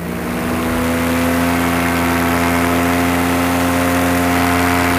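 Paramotor's two-stroke engine and propeller running hard at high throttle. The pitch rises a little over the first second or so, then holds steady.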